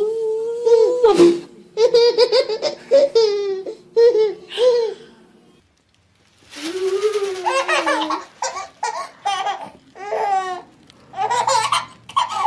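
Babies laughing: one baby laughs in quick bursts of giggles, then after a brief silence about six seconds in, another baby laughs in repeated short bursts.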